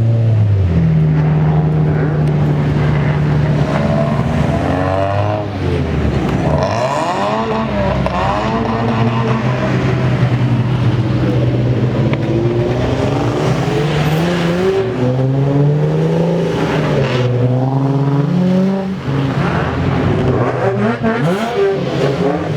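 Several car engines revving and pulling away one after another. Their pitch holds steady for a few seconds, then climbs and falls as each car accelerates off.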